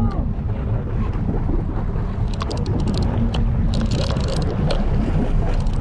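Steady low rumble of wind on the microphone and boat noise aboard a fishing boat at sea, with a cluster of sharp clicks and knocks about two to four and a half seconds in.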